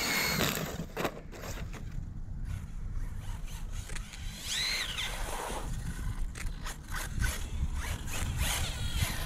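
Electric RC short course truck with a sensored Reedy brushless motor driving on asphalt: the motor whines up and down, with scrabbling tyre and gravel noise and a steady low wind rumble on the microphone.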